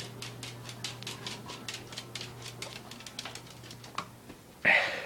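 Quick, irregular clicking and tapping from a dog moving about, then a short, loud burst of noise near the end, over a steady low hum.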